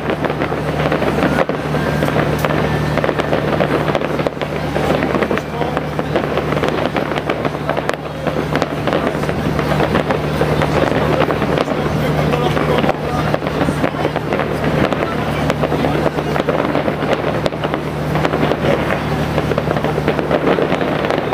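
Fireworks display: a dense, continuous run of bangs and crackles in quick succession, with music playing underneath.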